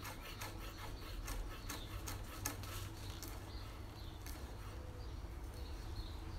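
A large chef's knife slicing garlic cloves on a wooden chopping board: quick taps and scrapes of the blade on the board, about three a second, thinning out after about three seconds.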